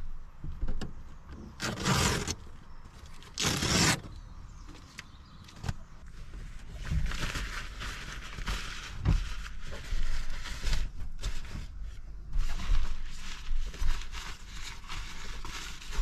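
Fabric handled inside a car: bedding and blackout curtains being rustled and pulled. There are two short, loud swishes in the first few seconds, then stretches of steady rustling with soft knocks.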